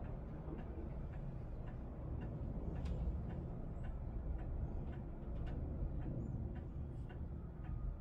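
Light, regular ticking, a few ticks each second, over a steady low rumble.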